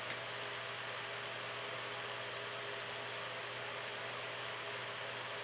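Steady electrical hum under a constant hiss: room tone with no other events.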